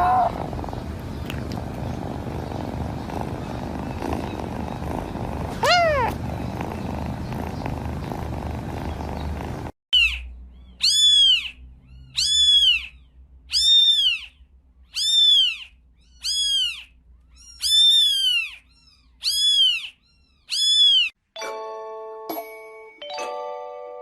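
A cat purring steadily, with one short meow about six seconds in. After an abrupt cut, a kitten meows over and over: about nine high, arched calls a little over a second apart. A short chiming tune starts near the end.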